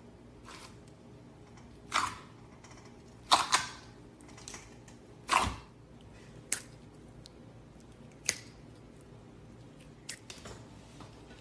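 Slime being handled, giving a string of short, sharp pops and clicks at irregular intervals, the loudest about two, three and a half and five and a half seconds in.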